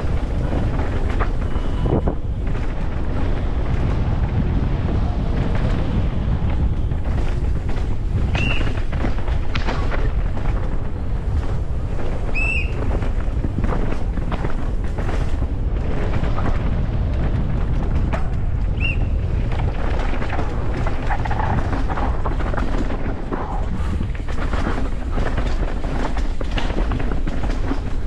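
Wind buffeting a camera microphone at speed, with the dense rattling and knocking of a downhill mountain bike over rough, rocky track. There are a few short high squeaks, about four in all.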